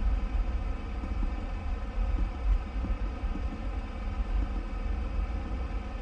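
Steady low background rumble with a faint, even hum above it.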